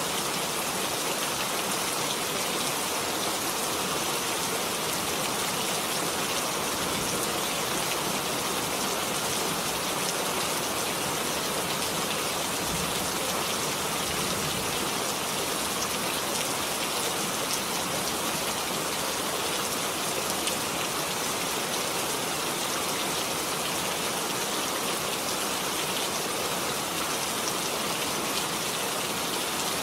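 Steady rain falling, a dense even hiss of drops with fine patter and no pauses or changes.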